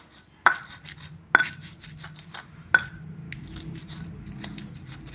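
Stone pestle (ulekan) pounding and grinding sliced shallots, ginger and chilli in a stone cobek mortar. Three sharp, ringing knocks of stone on stone come in the first three seconds, among many lighter taps and scrapes.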